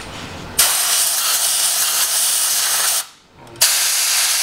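Compressed-air blow gun hissing in two blasts, with a short break about three seconds in, blowing loose, flaking factory e-coat paint off a rusty steel frame.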